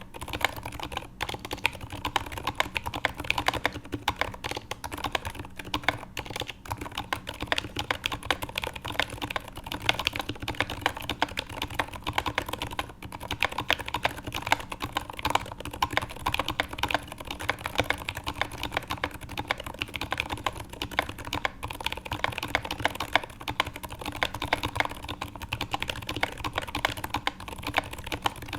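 Continuous typing on a custom TX HJ-CP mechanical keyboard with lubed and filmed Zeal Zilent 62g silent tactile switches, an acrylic plate and GMK Nautilus keycaps: a dense, steady stream of keystrokes.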